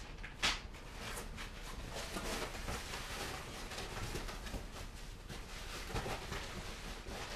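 Rustling and crinkling of a thin foam packing sheet and plastic parts bags being handled and pulled aside in a cardboard box, with small crackles throughout and a sharper click about half a second in.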